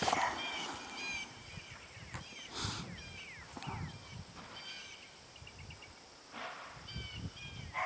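Small birds chirping in short repeated phrases over a steady high-pitched tone, then right at the end a single sharp, loud crack of a Ruger Mark 1 pellet pistol firing.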